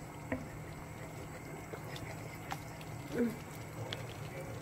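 Thick chicken rice porridge (lugaw) simmering in a pan, with soft bubbling and a few short pops as bubbles burst through the thick surface.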